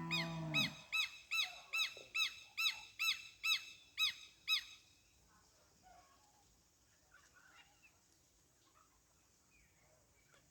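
A bird calling a rapid series of about ten loud, arched notes, a little over two a second, which stop after about four and a half seconds. Faint scattered bird chirps follow.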